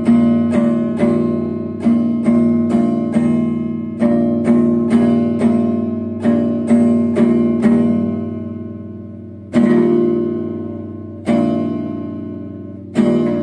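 Chiming clock playing its melody, a quick run of struck chime notes that ring and fade. It then begins striking the hour with slow single strokes about every second and a half.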